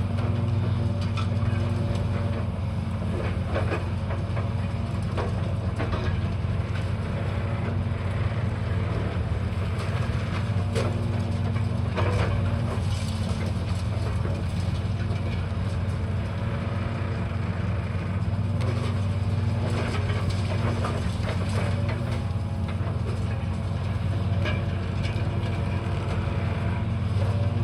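Heavy demolition machinery's engine running steadily, with scattered crunching and clattering of debris being broken.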